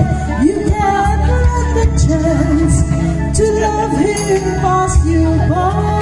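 A pop-style song playing, with a melody over a heavy bass line; a singing voice is likely in it.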